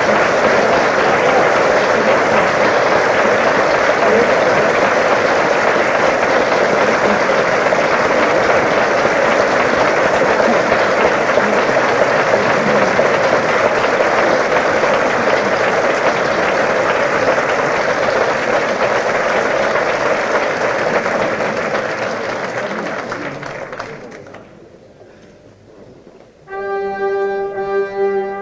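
Audience applauding steadily, dying away after about 23 seconds. After a brief hush near the end, orchestral brass come in with a sustained chord.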